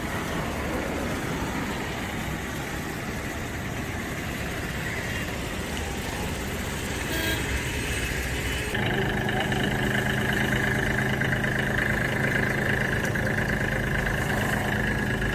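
Steady road-traffic noise, then from about nine seconds in a compact Kubota tractor's diesel engine idling steadily.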